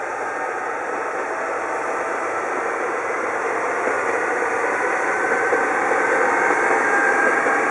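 Two-car diesel railcar set running away from a station, its engine and wheels on the rails making a steady rushing noise that grows steadily louder.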